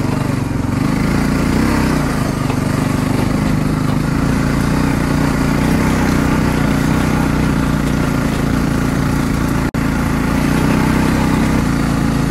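Four-wheeler (ATV) engine running at a steady pace under load as it tows a wrecked riding lawn mower on straps. The sound cuts out for an instant about ten seconds in.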